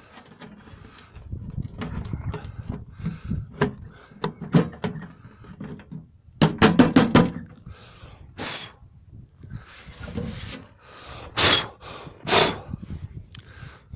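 A mailbox being opened and snow knocked out of it: a run of knocks and clatters, a quick rattle of strikes about halfway through, and a few sharp bangs near the end.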